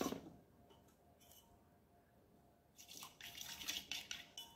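Wooden skewer stirring melted paraffin wax in a metal pot: faint liquid swishing and scraping, coming in short bursts from about three seconds in after a near-silent start.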